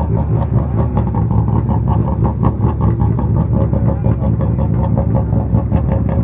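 Renault Clio S1600 rally car's engine idling loudly and steadily, with a dense, uneven beat of firing pulses.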